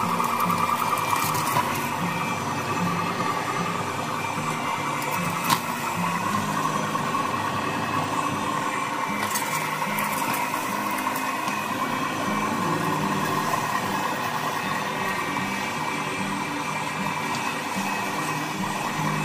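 Electric meat grinder running steadily as chocolate-dipped ice cream cones are fed through it and ground, with a few sharp cracks.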